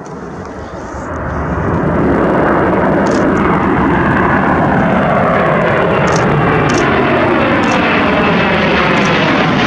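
Airbus Beluga (A300-600ST) cargo jet's twin turbofan engines at take-off power: a roar that swells over the first two seconds and then holds loud and steady, with tones gliding down in pitch through it.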